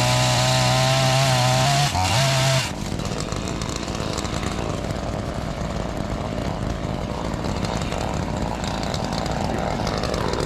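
Gas chainsaw held at full throttle, its high engine note dipping briefly about two seconds in. The throttle is released about two and a half seconds in, and the saw runs on at a lower, rougher level.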